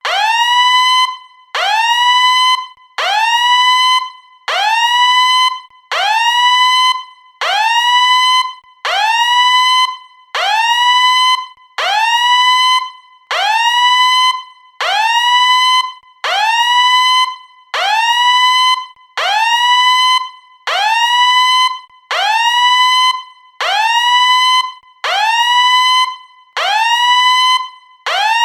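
Submarine fire alarm sounding: a rising whoop repeated about every second and a half. Each one sweeps up in pitch, holds one tone for about a second, then cuts off before the next begins.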